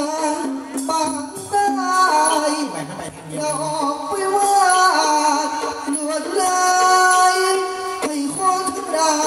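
Likay singer's voice amplified through a microphone, singing a slow, ornamented Thai melody with long held notes over instrumental accompaniment.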